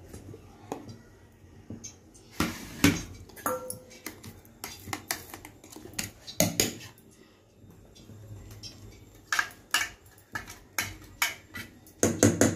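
A steel spoon knocking and scraping inside a stainless-steel mixer-grinder jar, giving irregular metallic clinks as the ground chutney is scooped out.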